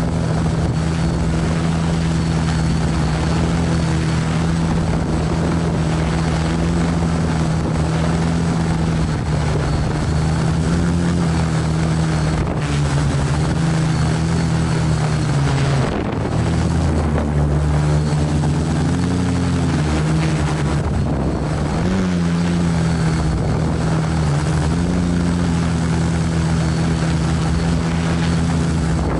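ArduCopter multirotor drone's electric motors and propellers humming steadily, heard from a camera on board. The pitch dips and wavers about halfway through and again a few seconds later as the motors change speed to hold position in gusty wind.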